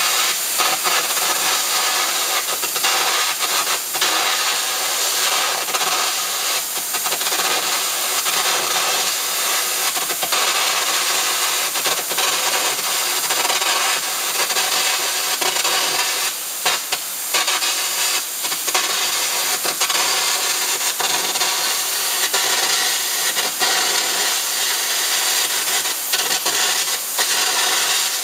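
Arc gouging of metal: a steady, loud, harsh hissing rush, peppered with crackles and snaps. It breaks briefly twice a little past halfway.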